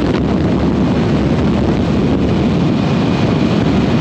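Motorcycle running flat out at close to top speed, with heavy wind rushing over the microphone and a steady engine drone beneath it. The bike is most likely a KTM 390 Adventure, given the KTM service and the speedometer reading of about 150 km/h.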